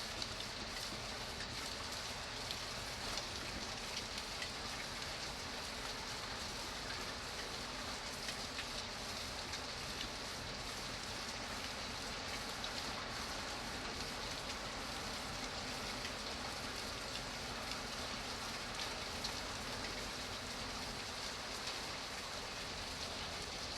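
Steady rainfall, drops pattering on a surface with scattered sharper ticks.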